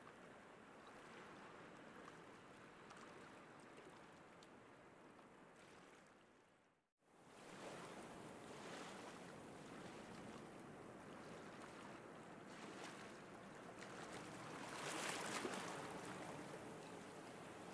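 Faint sea surf washing onto a beach, a steady hiss of water noise. It fades out to silence about seven seconds in, comes back, and swells once near the end.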